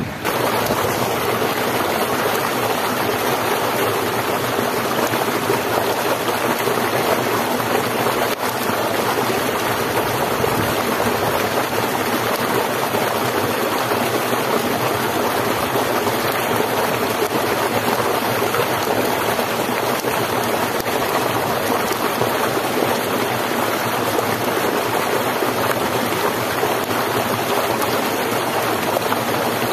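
Steady rush of a flowing stream, unbroken and even.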